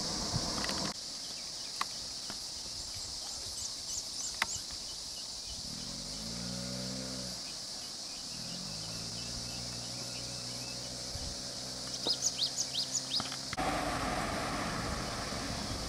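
Outdoor forest ambience: a steady high insect drone with short bird chirps, a quick run of them near the end. Through the middle runs a low pitched hum that bends in pitch, then holds steady for several seconds. The background changes abruptly about a second in and again near the end.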